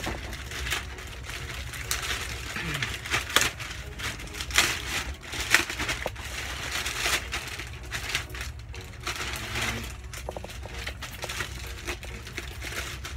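Plastic mailer bag crinkling and rustling irregularly as it is pulled open by hand, with a steady low hum underneath.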